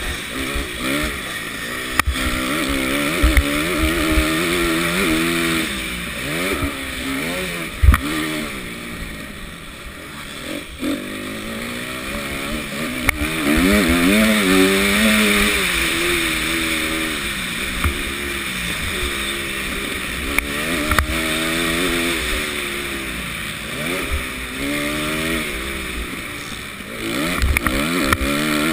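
Motocross bike engine at race pace, repeatedly revving up and dropping back as the rider works the throttle and gears, with wind rushing over the microphone. A few sharp knocks cut through, the loudest about eight seconds in.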